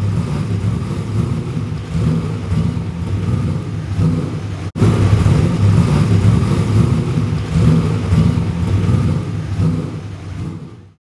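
Racing car engine running, a deep steady rumble. It cuts out for an instant about halfway through, then fades away at the end.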